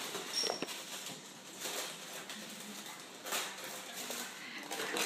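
Gift-wrapping paper rustling and tearing in a few short bursts as a small child pulls it off a present box.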